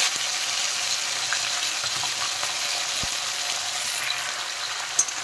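Salt-and-turmeric marinated chicken pieces sizzling steadily in hot mustard oil in a kadai. There are two light knocks, about 3 and 5 seconds in.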